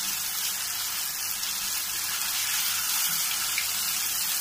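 Masala-coated fish fillets deep-frying in a pan of hot oil: a steady, even sizzle of bubbling oil.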